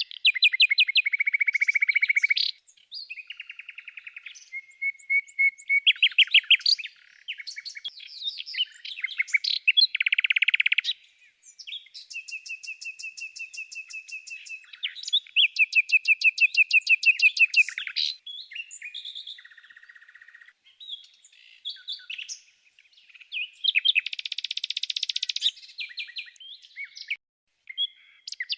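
Songbirds singing: a continuous run of rapid trills and chirps in varied phrases, one steady trill held for about three seconds near the middle, over no other background sound.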